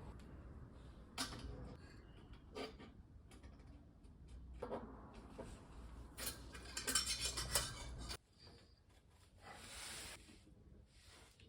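Metal clinks and knocks from a steel exhaust downpipe being offered up and fitted to the turbo's outlet flange, with a quick flurry of rattling clinks about six to seven and a half seconds in.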